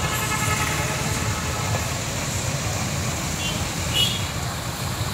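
Street traffic noise: a steady rumble of passing road vehicles, with a brief high-pitched sound near the end.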